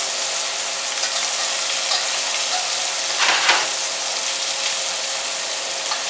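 Sheepshead fillets frying in hot melted butter in a stainless steel skillet, a steady sizzle. About three seconds in, a spatula briefly scrapes across the pan as it pushes the fillets around.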